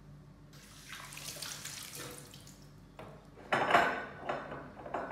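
Water running from a bathroom tap into a sink as hands are washed under it, splashing loudest about three and a half seconds in.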